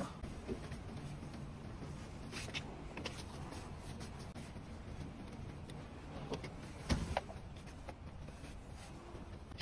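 Knocks and clicks from a car's rear seat parts and seat cover being handled and moved, over a steady low hum. The loudest knock comes about seven seconds in.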